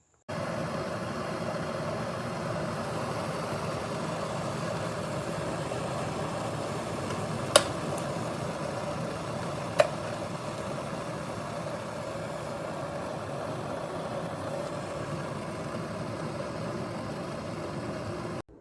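COMFEE stainless steel electric kettle heating water: a steady rumbling hiss that starts and stops abruptly. Two sharp clicks come a couple of seconds apart midway through.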